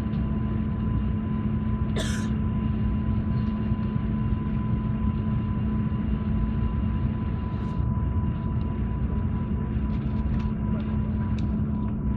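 Steady airliner cabin noise: a constant low rumble with a steady hum, and a brief sharp noise about two seconds in.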